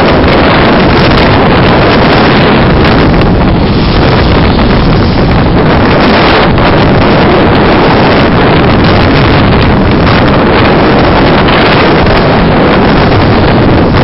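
Strong storm wind buffeting the microphone in a loud, steady roar, over the noise of heavy storm surf breaking against the rocks of the shore.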